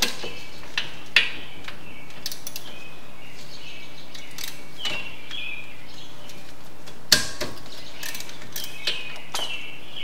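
A few isolated metal clicks and knocks from wrenches working the front brake caliper's top mounting bolt as it is loosened, the loudest about seven seconds in. Birds chirp faintly in the background over a steady low hum.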